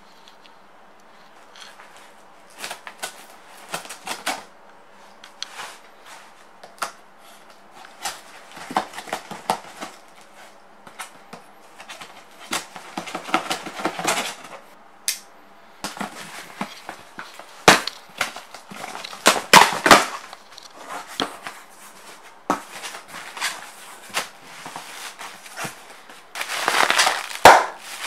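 Cardboard shipping box being opened and handled by hand: irregular scrapes, taps and knocks, with a burst of plastic air-pillow packing crinkling near the end.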